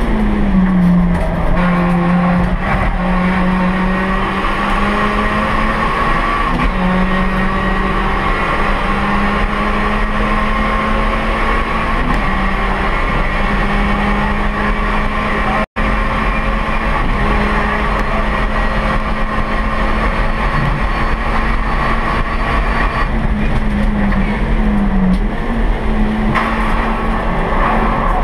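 Race-tuned Honda Brio's L12B 1.2-litre four-cylinder i-VTEC engine running hard at high, fairly steady revs under racing load, heard from inside the cabin, with brief dips in pitch just after the start and again about 24 seconds in.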